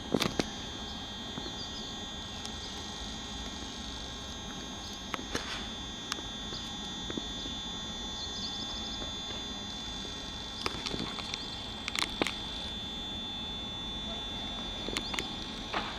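SNCB AM409 electric multiple unit standing at the platform, its onboard equipment giving a steady hum with a high whine. A few short sharp clicks and knocks break in, about five seconds in, twice around the eleven-to-twelve-second mark, and near the end.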